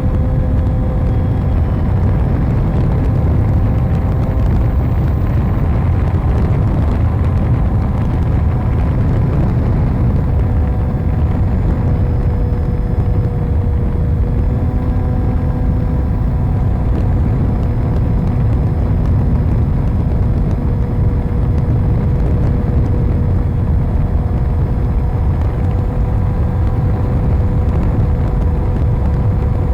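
Onboard audio of an RC model plane in flight: a heavy wind rush buffeting the camera's microphone over a steady hum from the plane's motor and propeller, its pitch dipping slightly partway through.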